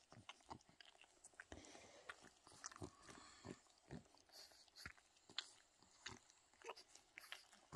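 Faint, scattered wet clicks of a pug licking and smacking its lips while being stroked.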